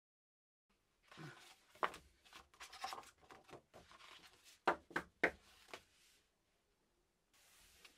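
Heavy 300gsm hot-pressed cotton watercolour paper being handled: a folded sheet is slid inside another, rustling and scraping faintly, with a few sharp papery taps and clicks in the middle as the folded sheets are squared up.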